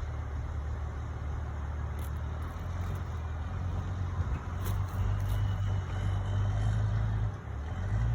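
Ram 3500's 6.7-litre Cummins inline-six turbodiesel pulling a heavy load of about 46,000 lb gross, towing a bulldozer: a steady low drone that drops briefly about seven seconds in, then comes back louder.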